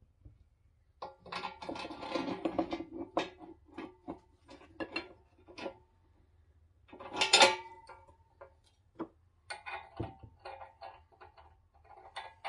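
Steel sawmill parts being handled and bolted together: irregular metal clinks and rattles of bolts, nuts and a roller against the painted steel bracket, loudest about seven seconds in.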